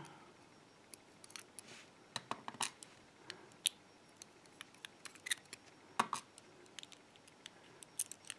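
Irregular light metallic clicks and taps of tweezers working inside a brass lock cylinder, drawing out the small driver pins and setting them down on a plastic pin tray.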